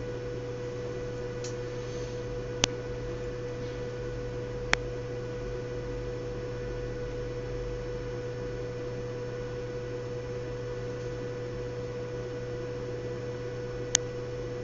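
Small fischertechnik DC motor driven by Arduino PWM, running with a steady hum and a thin high whine, broken by three sharp clicks.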